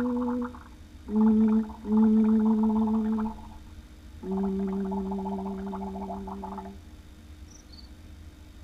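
Closing buzzy, warbling notes from a VHS tape's soundtrack heard through a TV speaker: a held note that stops about half a second in, two shorter notes, then a longer, slightly lower note that fades out near the end, leaving a faint hum and hiss.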